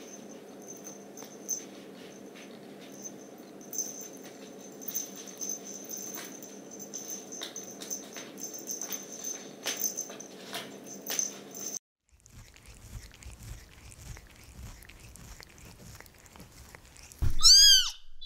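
Light clicks and taps as a cat plays with a small ball on a string, over a steady hum; after a break, one short, high meow near the end, the loudest sound.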